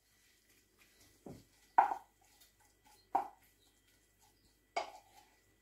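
A utensil knocking against a frying pan four times, a second or so apart, as wilted spinach is stirred into cooked gammon and onion.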